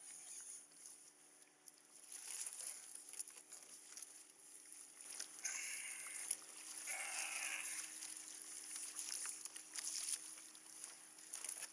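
Wind on the microphone and choppy water slapping against a plastic kayak hull, with a louder stretch of splashing noise a little past the middle.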